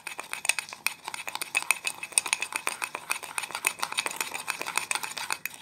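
Metal spoon beating instant coffee, sugar and a little water into a thick paste in a ceramic cup. The spoon clinks and scrapes against the cup several times a second in a rapid, steady run, as the mixture is whipped toward a frothy whipped coffee.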